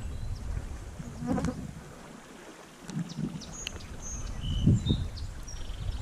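Wind buffeting the microphone in uneven gusts, with birds chirping in short, high notes over it.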